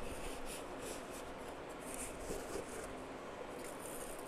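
Paper towel rubbing and rustling against a stainless-steel tumbler as it is wiped dry, in quick repeated strokes.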